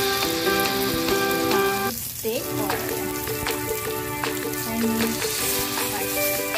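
Beef steaks sizzling in oil in a ridged grill pan, a steady hiss with sharp crackles that thicken from about two seconds in. A background music track with a simple melody plays throughout.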